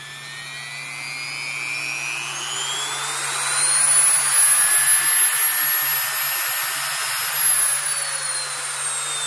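Dremel MultiPro 395 variable-speed rotary tool running with no bit fitted, its motor whine climbing steadily in pitch and loudness from low speed over the first four seconds as the slider is pushed up, holding near top speed, then easing down a little near the end. The motor runs smoothly and sounds well broken in, spinning a bit faster than its sister tools.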